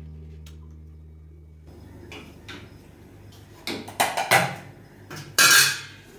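Metal cooking pots and utensils clanking on a gas stove: a few light knocks, then several sharp clangs and a longer, louder clatter near the end.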